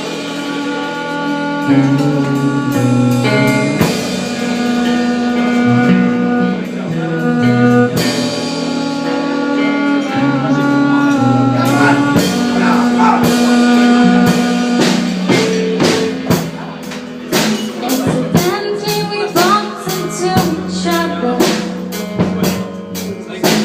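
Live rock band playing an instrumental passage on guitar and drum kit, with held guitar notes over the beat; the drumming grows busier with rapid hits in the second half.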